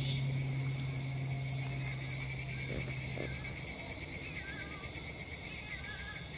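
Chorus of cicadas, a steady high-pitched drone. A low steady hum underneath stops about halfway through.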